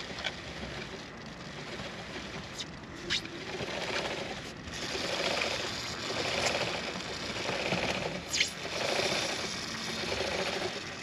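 Kawasaki ZX-6R drive chain clicking steadily over the rear sprocket as the raised rear wheel is turned by hand. Aerosol penetrating lube hisses onto the chain links in swells that come and go.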